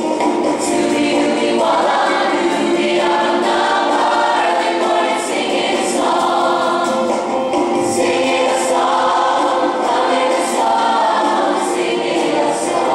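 A large ensemble of voices singing together in chorus, with musical accompaniment, recorded live in a theatre.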